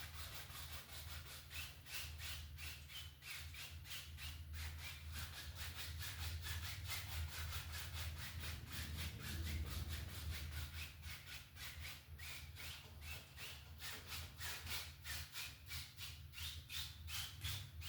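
A dry 1-inch brush scrubbing oil paint across the canvas in quick, even back-and-forth strokes, about three to four a second, blending the sky.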